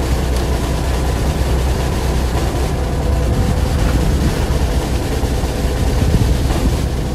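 Fishing boat's engine running steadily: a constant low drone.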